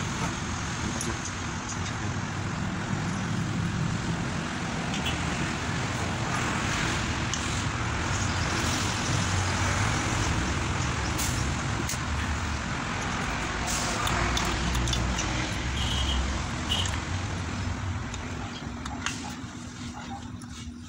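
Traffic noise from passing road vehicles, swelling in the middle and easing off near the end, with a few light clicks.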